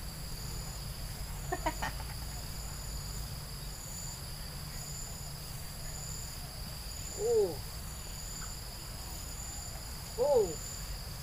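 Steady chorus of insects, several high-pitched steady tones with one pulsing above them, over a low rumble. Twice, about seven and ten seconds in, a short call rises and falls in pitch, the loudest sound, and a few faint clicks come near the start.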